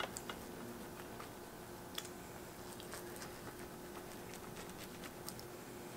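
Knife and fork cutting through a stack of soft pancakes, with scattered light clicks of the cutlery against the plate, over a faint steady hum.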